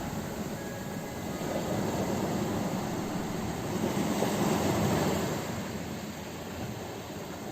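Ocean waves breaking on a shore: a deep rush of surf that swells to a peak about halfway through, then draws back.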